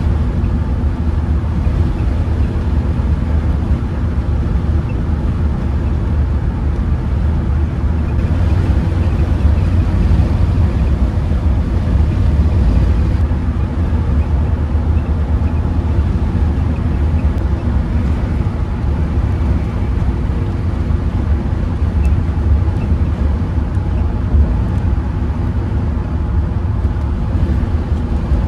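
Steady low rumble of a camper van driving at highway speed, heard from inside the cabin: tyre and engine noise with no change in pace. One short bump sounds late on.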